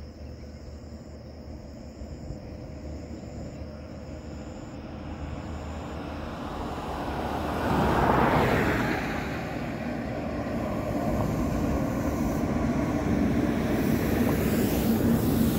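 Road traffic: a vehicle's noise swells and passes about eight seconds in, then another engine's low hum builds toward the end.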